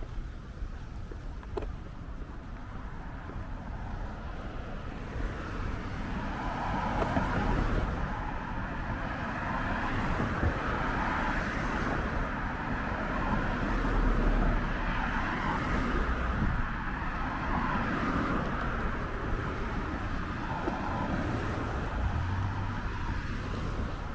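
Road traffic on a city street: cars passing one after another, the noise building from about five seconds in.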